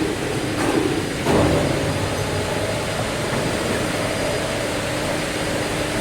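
Steady machinery hum in a factory, with a few knocks in the first second and a half as parts of the belt sander are handled.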